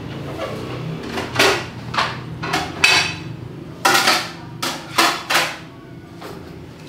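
Metal cooking utensil knocking and clanking against a cooking pot, in a series of irregular strikes with one short ringing clank about three seconds in, over a low steady hum.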